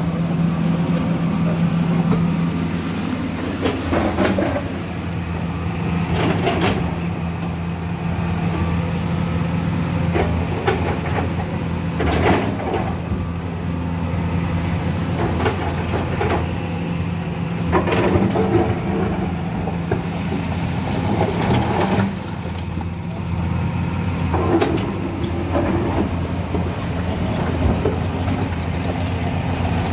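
Volvo crawler excavator's diesel engine running steadily under load as the bucket digs into broken rock, with rocks clattering and the bucket scraping at irregular intervals every few seconds.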